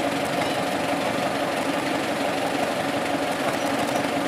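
Engine of the armoured First World War narrow-gauge light railway locomotive LR 3098 idling steadily while the locomotive stands.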